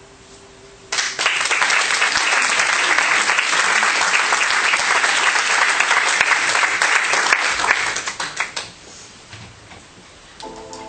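Audience applauding, starting suddenly about a second in and dying away about eight seconds in.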